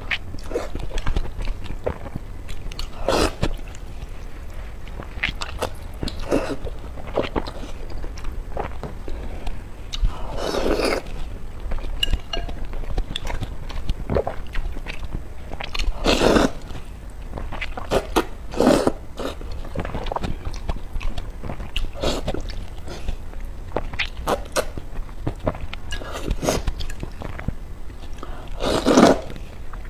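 Close-miked eating of glass noodles in spicy sour broth: chewing with wet mouth clicks and smacks, broken by several long, loud slurps of noodles, the loudest near the end.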